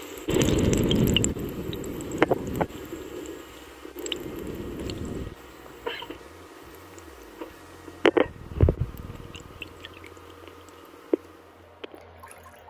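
Water sloshing in a plastic hydro-dip tub as a board is worked through the floating paint film, with low swishing in the first few seconds and then scattered sharp drips and taps.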